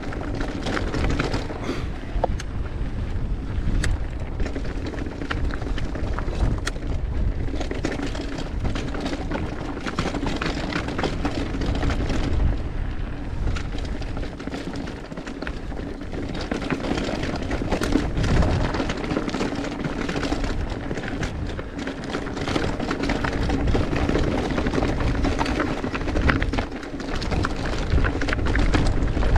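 Mountain bike riding down a dirt trail: a steady rumble of tyres over dirt and rock, with a constant clatter of small knocks and rattles from the bike.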